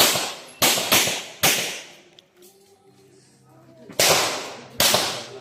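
Gunshots in a practical shooting course of fire: a sharp report at the start and three more in quick succession within the first second and a half, a pause, then two more about four and five seconds in, each with a brief decaying echo.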